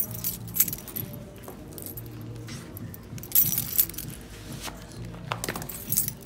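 Rustling and light jingling in several short bursts as a black lace-up sneaker is tried on and its laces handled; the loudest burst comes about three and a half seconds in.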